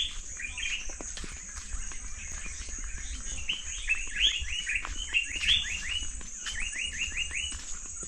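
A bird singing rapid runs of short chirps that slide down in pitch, several a second, with a few notes at first and longer runs in the second half.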